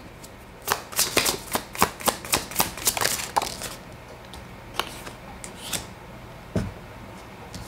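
Tarot cards being shuffled by hand: a quick run of crisp card snaps for about three seconds, then a few cards laid down on the table with scattered light taps and one soft knock near the end.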